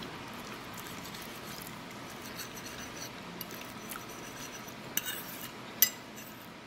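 A fork scraping and clicking against a ceramic plate, with a couple of sharper short clinks about five and six seconds in, over a low steady room background.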